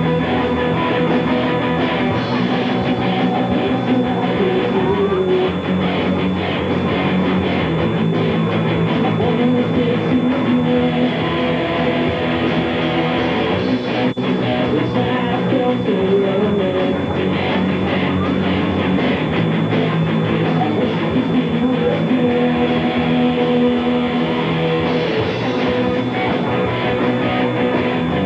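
Live rock band playing an original song: amplified guitars over a drum kit, loud and continuous.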